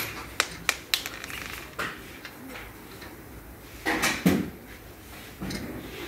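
Sharp metallic clicks and taps from an air impact wrench's socket on a car wheel's lug nuts, four of them in the first second. A short, louder noisy burst follows about four seconds in.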